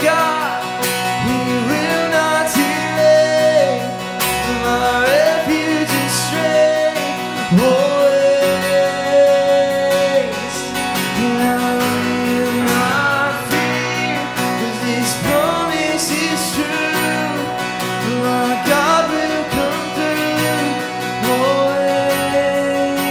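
Church music: singing to acoustic guitar accompaniment, with long held notes that slide between pitches over a steady strummed backing.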